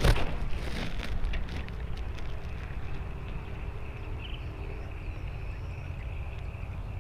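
A fishing rod cast with a spinning reel: a quick swish and a few clicks in the first second or so. Then a steady low rumble of wind on the microphone, with a steady high-pitched buzz.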